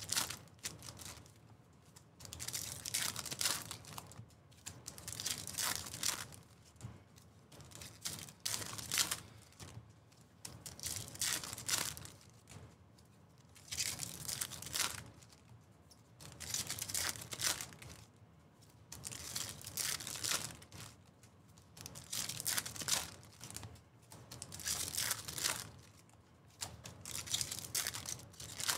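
Foil trading-card pack wrappers being torn open and crinkled by hand, one pack after another. The crinkling comes in about a dozen short bursts, every two to three seconds.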